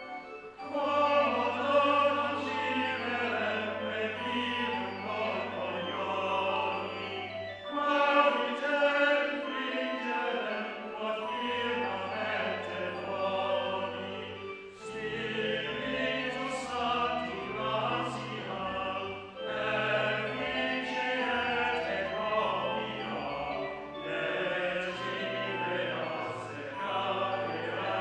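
Church choir singing in several parts, in phrases with short breaks between them, over low held organ notes.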